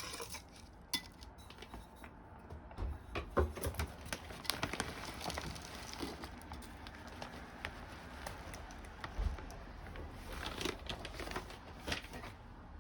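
Potting mix being handled: a plastic bag crinkling and soil pattering as it is scooped, with scattered small clicks and knocks.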